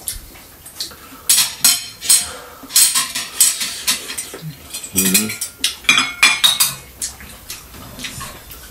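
Cutlery clinking and scraping against ceramic bowls and plates while people eat: irregular clusters of short, sharp clicks that die down near the end.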